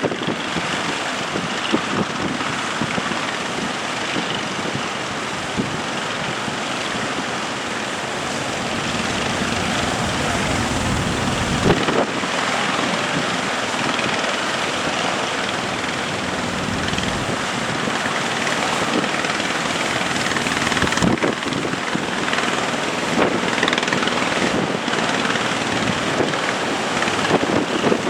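Fishing boat engine running steadily, mixed with strong wind buffeting the microphone and the rush of waves, with a few sharp knocks.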